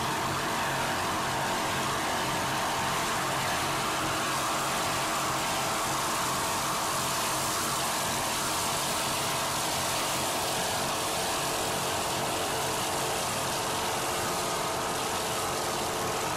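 Steady engine drone under a loud rushing noise of wind and water, holding level with no change in pitch.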